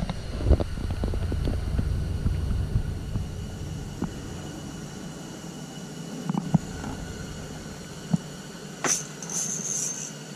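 Rumbling handling noise and scattered knocks as an angler moves about inside an ice-fishing shelter. The rumble dies away about four seconds in. Near the end a sharp click is followed by a high-pitched buzzing that comes and goes.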